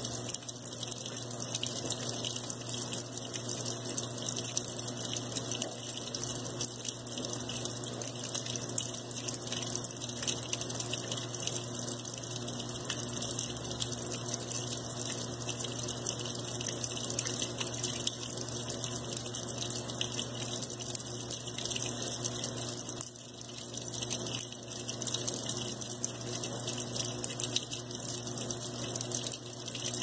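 Consul Maré top-loading washing machine filling: a stream of water pours into the tub onto the wet cloths, steady throughout, with a brief lull about 23 seconds in.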